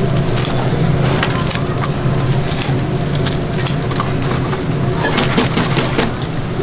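Kitchen scissors snipping through crisp deep-fried pork ribs, a crunchy cut about once a second, then several quick snips near the end. A steady low hum runs underneath.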